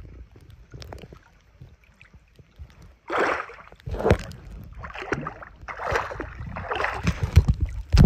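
Paddle strokes splashing in lake water, a noisy splash about once a second starting a few seconds in, over a low wind rumble on the microphone.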